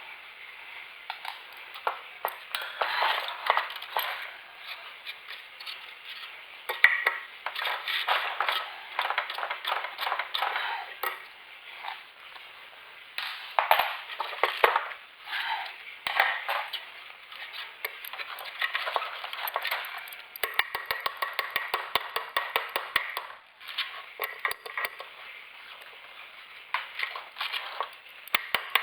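Irregular metallic clinking, tapping and clattering of hand tools and metal parts, with many short sharp knocks throughout.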